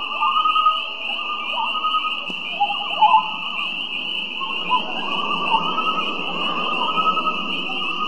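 Common loons calling, a run of wavering, warbling tremolo phrases that rise and fall, over a steady high-pitched chorus.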